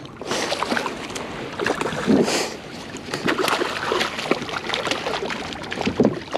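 A hooked sheepshead thrashing and splashing at the surface beside a kayak as it is drawn toward the landing net, mixed with short sharp clicks and knocks from the fishing reel and tackle being handled.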